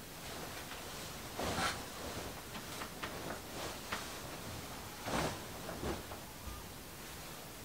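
Fabric rustling and swishing as a patchwork quilt top is handled and spread over a blanket by hand, with two louder swishes, about a second and a half in and about five seconds in.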